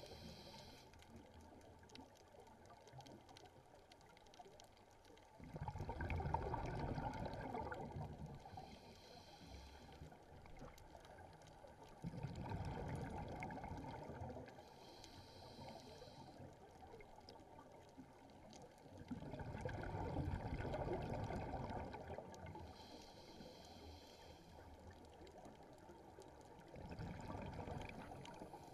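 Scuba diver breathing through a regulator underwater: a short hiss on each inhalation, then a longer, louder bubbling rush of exhaled air, repeating about every seven seconds, four breaths in all.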